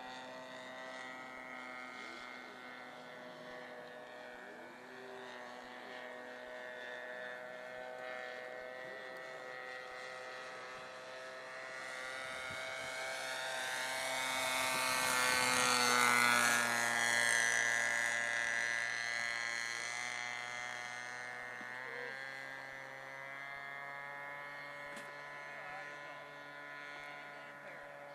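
Radio-controlled scale Stuka model airplane's engine and propeller droning steadily in flight. It grows louder during a low pass about halfway through, then drops in pitch and fades as the plane pulls away.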